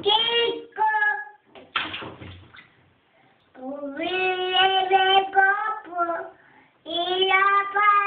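A toddler's sing-song voice: long held vowels in three phrases, with a short splash of bath water about two seconds in.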